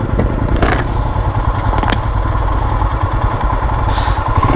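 Royal Enfield Himalayan's single-cylinder engine idling with a steady low rumble, with a couple of sharp knocks about a second and two seconds in.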